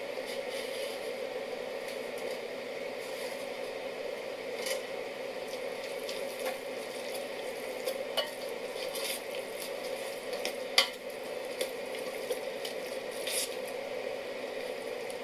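Pot of sea lettuce (aosa) simmering into tsukudani with a steady sizzling hiss, stirred with a utensil that clicks against the pot now and then, loudest about eleven seconds in.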